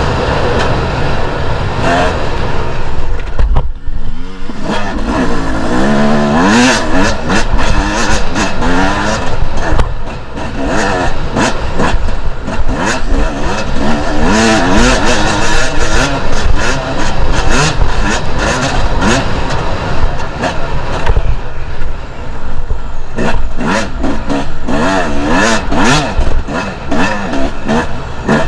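Two-stroke enduro dirt bike engine revving hard and easing off again and again as it is ridden off-road, its pitch rising and falling, with frequent knocks and buffeting mixed in.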